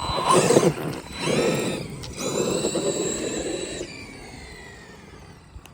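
Tekno MT410 2.0 electric RC monster truck taking off in three bursts of throttle, its motor whine rising in pitch over tyre noise. The third run is held at speed for about a second and a half, then the whine falls away and fades as the truck slows.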